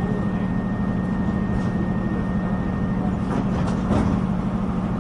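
Inside a Northern Ireland Railways diesel multiple-unit passenger train: a steady low engine and running hum with rumble underneath, a thin high whine over it for the first few seconds, and a few short clicks or knocks near the end.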